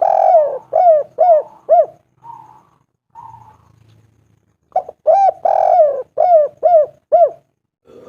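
Spotted dove cooing its song: two phrases, each of five or six short coos that rise and fall in pitch, with a pause and a few faint low coos between them.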